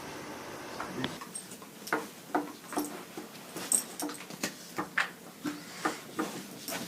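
A dog making short, sharp whimpering sounds, repeated irregularly about twice a second from about a second in.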